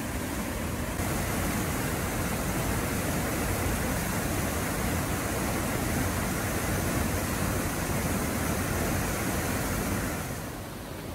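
Mountain stream cascade: a steady, full rush of water tumbling over rocks. It grows louder about a second in and falls back shortly before the end.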